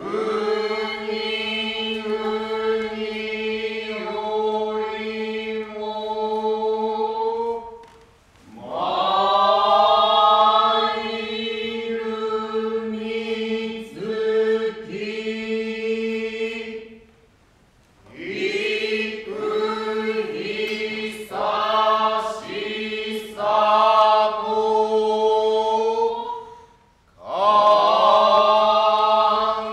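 A group of voices chanting kyogen utai in unison, long drawn-out held notes sung in phrases, with three short pauses between phrases.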